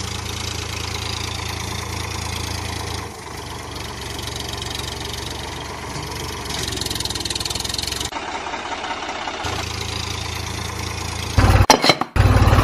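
Diesel tractor engine idling with a steady low chug, laid over a toy tractor that has no motor. The sound changes abruptly a few times where clips are joined, and a louder, choppy burst of engine sound comes near the end.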